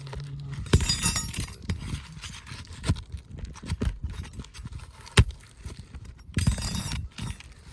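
Roofing nails being pried out from under shingles: a run of sharp taps and knocks, one loud crack about five seconds in, with two short scraping, crackling stretches, about a second in and near the end.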